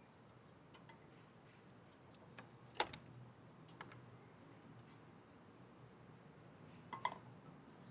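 Faint, scattered light clinks and jingling of small hard objects, with a sharper tap about three seconds in and another little cluster of clinks near the end.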